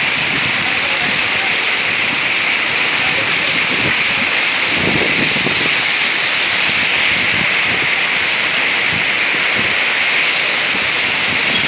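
Heavy rain falling steadily on a paved street and pavement, an even, unbroken hiss.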